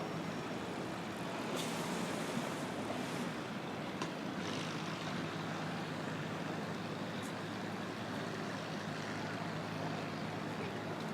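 City street traffic: a steady rumble of passing vehicles, with a brief hiss about one and a half seconds in and a couple of short clicks.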